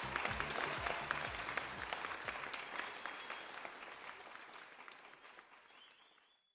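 Audience clapping and applauding, with low bass beats from the end of the music under it for the first two seconds. The applause fades out steadily and is gone near the end.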